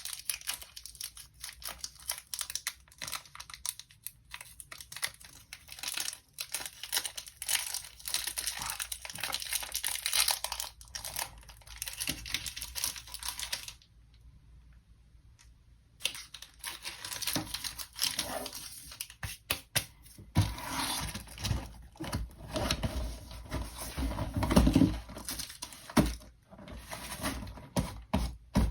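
Dishwasher-tablet packaging crinkling and tearing as it is opened and handled, with a short pause about halfway through and a few low knocks of handling in the second half.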